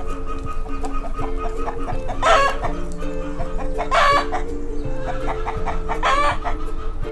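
Chickens clucking, with three louder calls about two, four and six seconds in, over steady background music.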